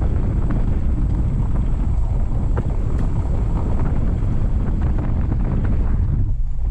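Car rolling slowly along a gravel road: a steady low rumble of tyres on gravel, with scattered small ticks and wind buffeting the microphone.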